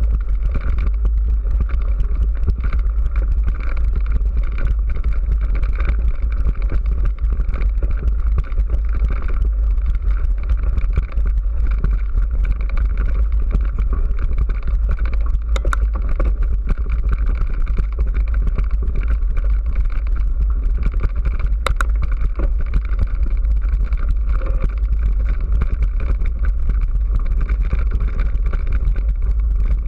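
Steady low rumble of wind buffeting and jostling on an action camera carried quickly along a rough gravel track, with two sharp clicks, one about halfway through and one several seconds later.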